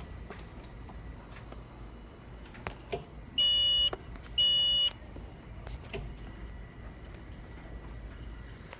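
Hardwired smoke detector's alarm sounding with two loud, high beeps, each about half a second long and a second apart, about three and a half seconds in. This is the detector reaching its alarm threshold on the test smoke.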